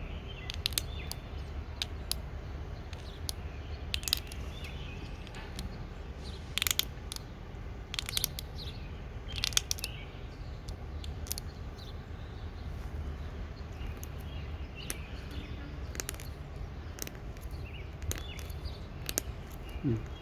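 X-Acto knife blade cutting and scraping a hard peach pit, heard as small irregular clicks and scrapes. Birds chirp faintly in the background over a steady low rumble.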